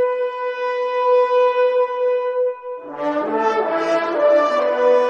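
A long, steady horn-like note that breaks off about two and a half seconds in. Several overlapping notes then waver in pitch for a moment before a steady note, with a lower one under it, holds again.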